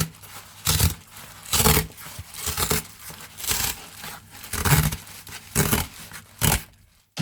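Packaging being torn and crinkled open in about eight short, sharp bursts roughly a second apart.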